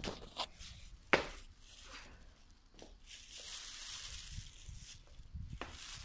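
Plastic bag crinkling close to the microphone as it is carried, with soft footsteps and a few sharp handling knocks, the loudest about a second in.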